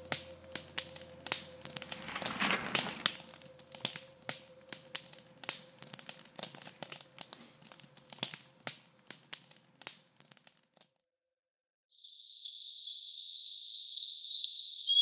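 Wood campfire crackling and popping with irregular sharp snaps. It cuts off about eleven seconds in, and after a second of silence a steady high insect chirring begins, with a short bird chirp near the end.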